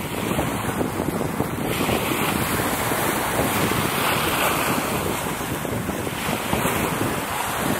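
Wind buffeting the microphone over small sea waves lapping, a steady rushing noise that turns a little hissier from about two seconds in.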